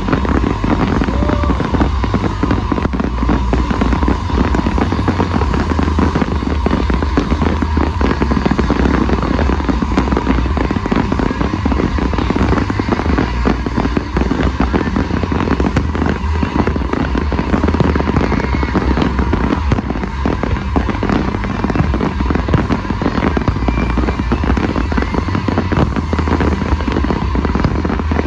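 Fireworks display going off in a continuous barrage: dense rapid crackling and popping over a steady deep rumble.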